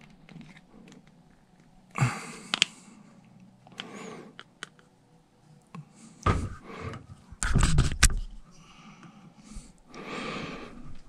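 Irregular handling noises: a thin metal tool scraping and clicking against a vintage He-Man action figure's hard plastic as a new rubber leg band is forced into the hip. Sharp clicks come about two seconds in and again in a cluster past the middle.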